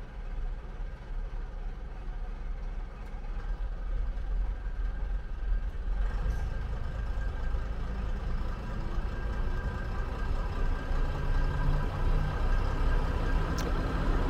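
Diesel multiple unit's engines running as it rolls slowly into the platform, growing steadily louder as it approaches, with a single sharp click near the end.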